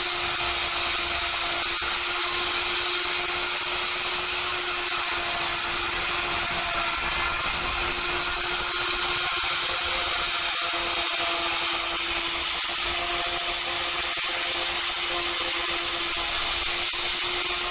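Dongcheng DMR12 1600 W wood router running at speed while cutting a groove along an aluminium composite cladding panel: a steady whine over the hiss of the cut, with no change in pitch or load.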